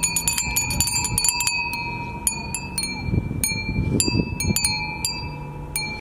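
Japanese glass wind chimes (fūrin) tinkling: quick clusters of bright, ringing strikes in the first second and a half, then sparser single strikes. A low rumble runs underneath, strongest around three to four and a half seconds in.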